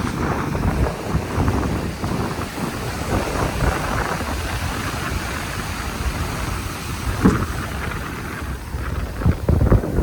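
Wind buffeting the microphone over the wash of surf on a beach: a rough, uneven low rumble, with a couple of louder thumps near the end.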